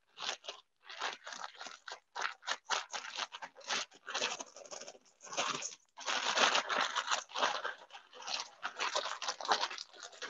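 Dry chipped substrate rustling and crunching as it is shaken and squeezed out of a plastic grow bag into a stainless steel bowl, the bag crinkling as it is worked by hand to break loose clumps. The sound comes in uneven rushes, fullest about six to seven seconds in.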